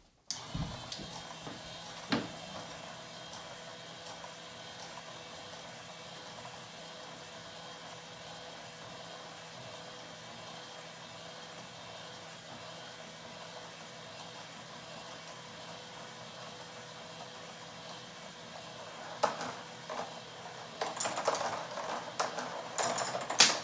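Marbles running down a marble-run track. A sharp clack about two seconds in is followed by a long steady rolling noise, then scattered clicks that turn into a dense clatter of marbles near the end.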